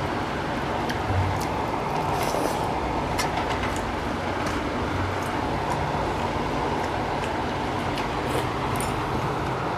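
Faint eating sounds of hands mixing and eating rice off steel plates, a few soft clicks and smacks, over a steady background noise.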